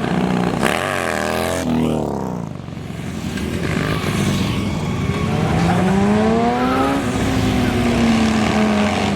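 Car engines and exhausts accelerating away. One engine revs up and drops back in the first two seconds. From about five seconds in, another car's engine note climbs for about two seconds as it pulls away, then levels off and eases down.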